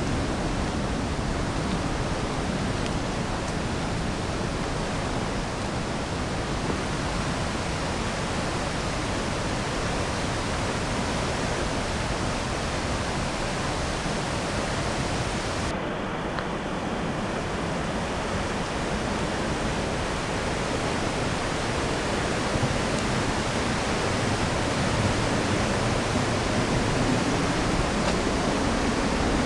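Steady rushing wind noise on the microphone while riding a folding bicycle, with the high hiss thinning for a moment about halfway through.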